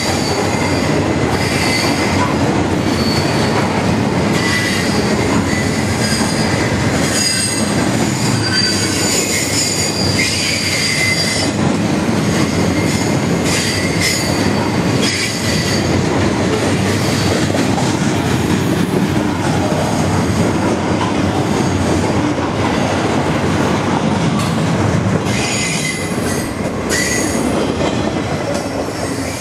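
Loaded welded-rail train rolling past close by: a steady rumble of steel wheels on the rails, with high-pitched metal squealing in several tones that come and go. It eases a little near the end as the last cars go by.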